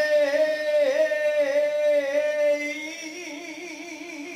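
A male rock singer holding one long note into a microphone with no drums behind it; about three seconds in the note gets quieter and takes on a wide, even vibrato.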